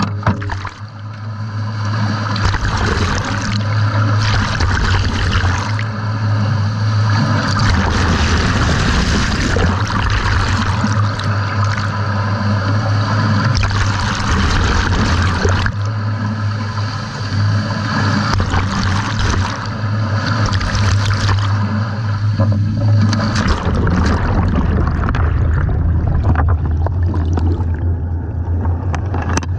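Water rushing and gurgling over a camera on a scallop dredge as the dredge is towed through the surface and down into the sea, with a steady low hum underneath. Near the end the rushing turns duller as the camera goes fully under.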